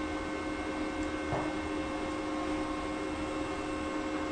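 Steady machine-like hum made of several constant tones over an even hiss.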